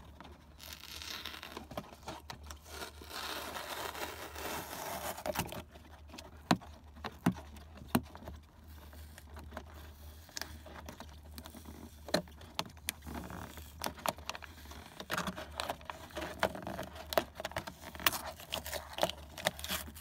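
A big paper sticker being peeled and torn off a cardboard box. A stretch of steady tearing and scraping comes first, then scattered sharp little clicks and scratches as the stuck paper is picked and scraped off by hand.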